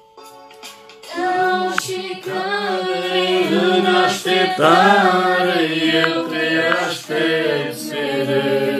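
Unaccompanied singing of a Christian worship song, a young woman's voice leading with held, wavering notes; it starts about a second in.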